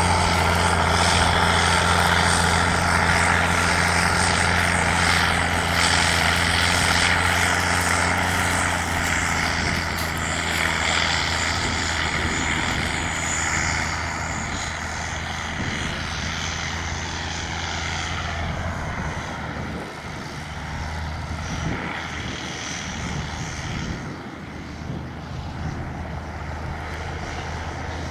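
A large engine running steadily, with a deep hum, slowly growing fainter as it moves away.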